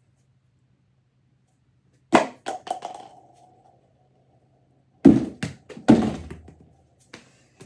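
Knocks from a thrown toss: about two seconds in, one sharp hit followed by a few quick smaller bounces. Then, around five to six seconds in, an American football lands with several heavy thuds against the plastic trash can, the door and the floor.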